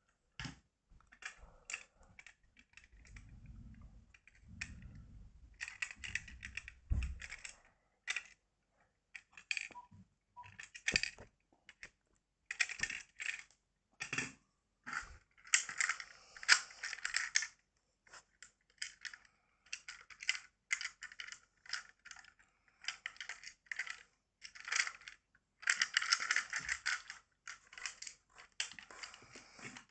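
Plastic toy shinkansen cars of a Plarail E3 series Tsubasa set clicking and clattering against each other and the wooden floor as they are handled and coupled, in irregular runs of sharp clicks.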